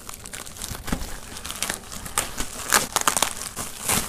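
Plastic UPS mailer envelope being torn open and crumpled by hand: a run of irregular crackling rips and crinkles.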